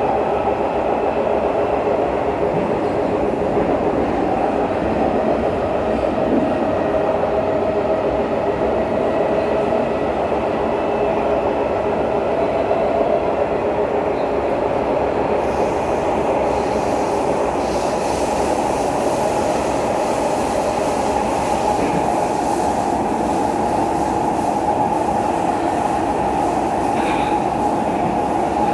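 Kawasaki-built SMRT C151 metro train running at speed in a tunnel, heard from inside the passenger car: a steady rumble of wheels on rail with humming tones under it. About halfway through, a higher hiss joins the noise.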